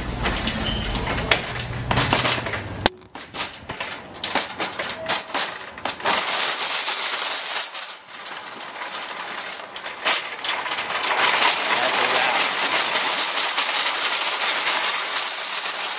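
Metal shopping cart rattling as it rolls over pavement, a continuous clattering with many small clicks. Before a sudden cut about three seconds in, there is a low hum of indoor room noise.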